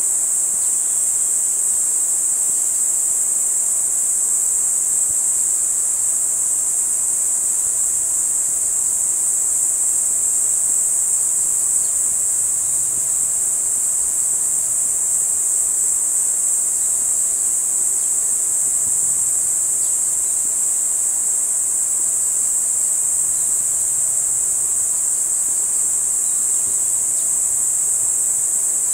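A steady, high-pitched chorus of insects chirring without a break, with a faint steady hum underneath.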